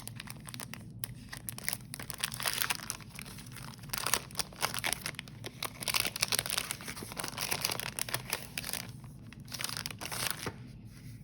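Crinkly packaging of paper planner inserts being handled and opened by hand, with crinkling and some tearing, busiest in the middle and tapering off near the end.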